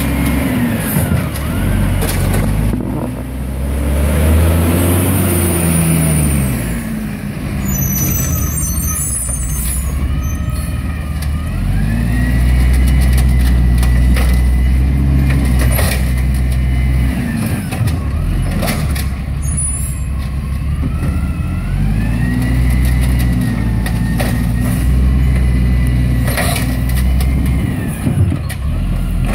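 Peterbilt 320 garbage truck's engine revving up and down about three times as it drives between carts and powers the Amrep automated side loader's hydraulic arm, with a whine that rises and falls with the engine speed. Short sharp clanks and hisses come in between.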